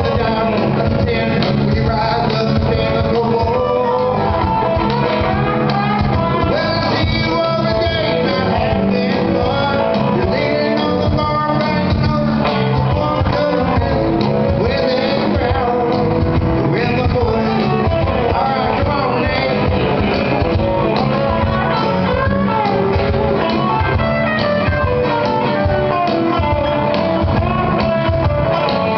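Live band playing: acoustic and electric guitars over a cajón beat, with a man singing into the microphone. Steady and full throughout.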